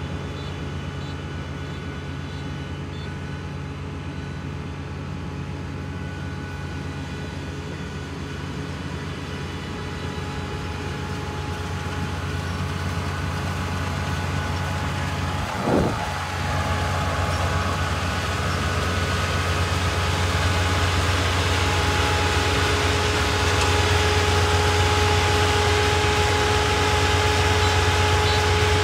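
Kubota ER448 four-row, 48-horsepower combine harvester running while cutting rice: a steady machine drone with a low hum and thin steady whines, growing louder as the machine comes close. A brief thump about halfway through.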